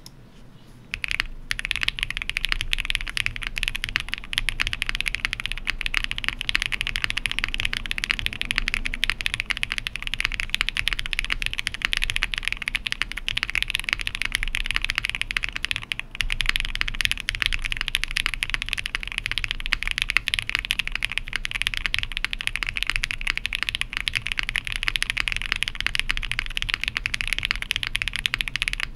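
Ai03 Vega mechanical keyboard with a POM plate, lubed Zaku switches and GMK keycaps, typed on fast and without a break. The key presses make a dense stream of clacks that starts about a second in.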